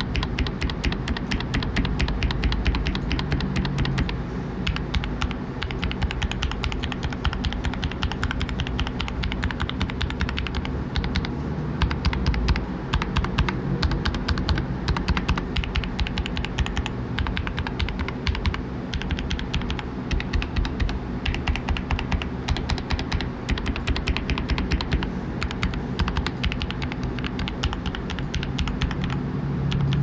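Rakk Ilis mechanical keyboard with Outemu Red linear switches lubed with Vaseline, typed on fast and without pause: a dense, continuous stream of keystroke clacks.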